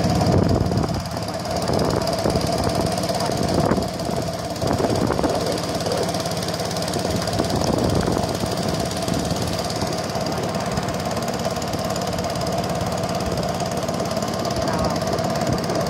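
Boat engine running steadily while under way, a continuous even drone with a strong steady tone.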